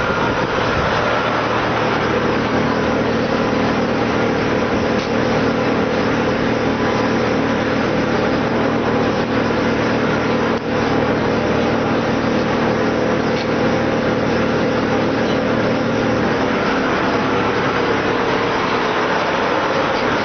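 Drum wood chipper running steadily with a constant mechanical drone, briefly dipping about ten seconds in.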